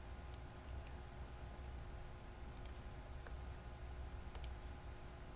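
Faint room tone of a voice recording: a steady low hum with a few small, sharp clicks.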